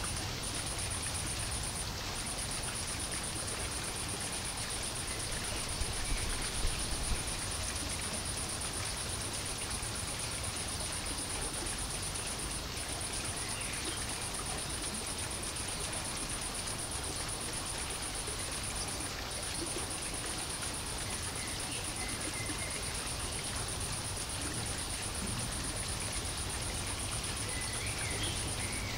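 Steady ambient noise: a low rumble and hiss under a continuous high-pitched whine that drops out briefly a few times, with no clear animal call.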